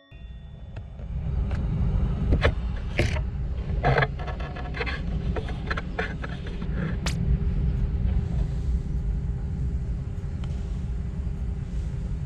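Steady low rumble, with a faint steady hum above it. A run of sharp clicks and knocks comes in the first half, then stops.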